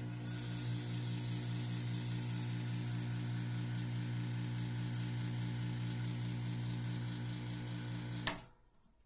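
An electric motor runs with a steady hum and a high whine, then is switched off with a click about eight seconds in and stops abruptly.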